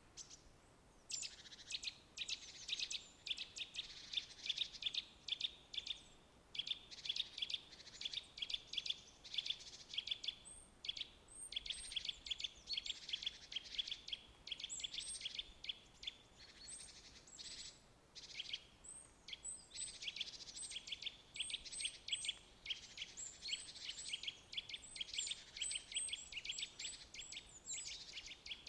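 Birds chirping: rapid runs of short, high chirps that follow each other almost without break, pausing briefly every few seconds.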